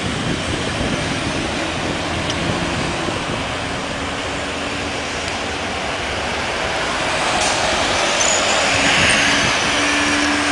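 Steady rush of road traffic on the highway beside the airport, mixed with the distant noise of jet airliners' engines. It swells louder about eight seconds in, with a faint falling whine.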